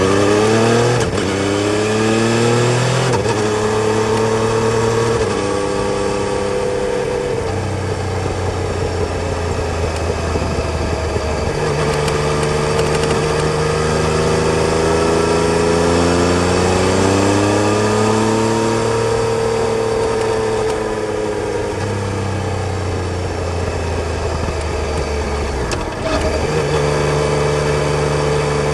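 Yamaha Tracer 900 GT's three-cylinder engine on the move, its pitch stepping and sweeping up and down as it accelerates and eases off, with a short dip near the end before it settles at a steady speed.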